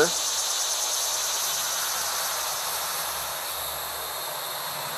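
Steady, high-pitched insect buzzing over a background hiss, easing off slightly toward the end.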